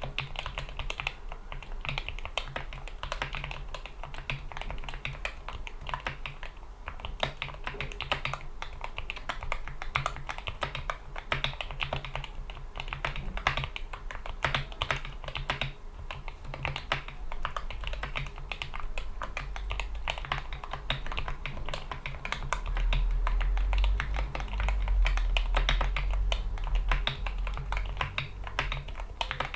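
Continuous fast typing on a GK61 mechanical keyboard with lubed Gateron Yellow optical linear switches, PBT keycaps and rubber O-ring dampeners: a dense stream of muted key clacks. A low rumble joins for a few seconds past the two-thirds mark.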